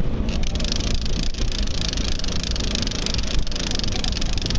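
A boat's engine running steadily under a loud, even hiss, the hiss coming up about a third of a second in.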